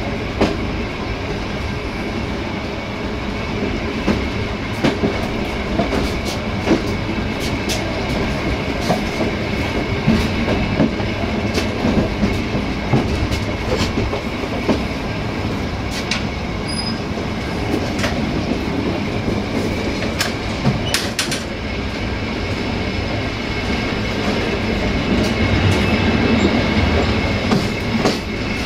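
Ride noise of a passenger train heard from on board: the coach wheels rumble steadily on the track and clack over rail joints, with a faint steady high wheel squeal.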